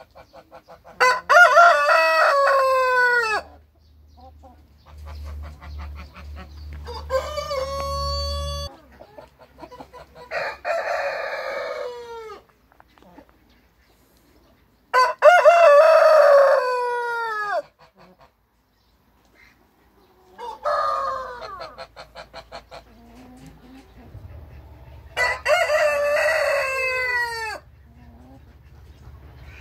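Brahma roosters crowing one after another: six long crows, each falling in pitch at the end. They differ in pitch and loudness, so more than one rooster is calling, some nearer than others.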